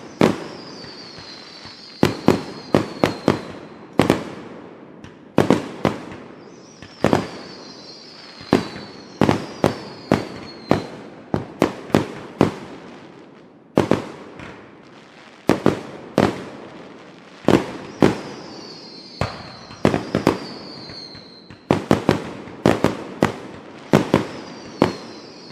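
Aerial fireworks bursting overhead: sharp bangs in quick clusters of two to five, each with an echoing tail, with short gaps between clusters. A high whine falling in pitch comes several times between the bangs.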